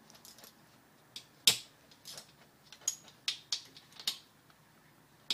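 Irregular sharp metallic clicks and taps of a hand tool working the cam chain tensioner bolts on a pit bike engine, the loudest about a second and a half in.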